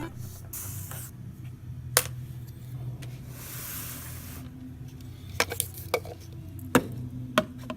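Hands handling small plastic toys and containers: a handful of sharp clicks and light knocks, with a short rustle about three and a half seconds in.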